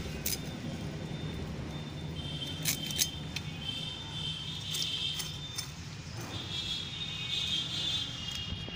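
A small fish being scaled against the curved blade of a boti: raspy scraping strokes in two long runs, broken by a few sharp clicks, over a steady low hum.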